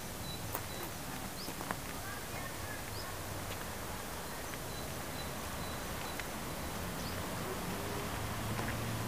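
Outdoor ambience: a steady hiss of background noise with scattered short, high bird chirps and a few faint clicks.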